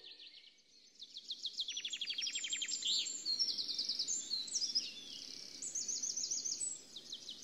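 Small songbirds singing outdoors: quick runs of high chirps and rapid trills, starting about a second in and continuing, over a faint outdoor hum.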